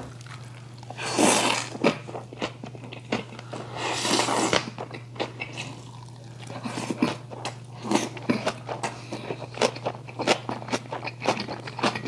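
Close-miked mouth sounds of a man eating noodles. There are two long slurps, about a second in and about four seconds in, then steady chewing with many wet, smacking clicks.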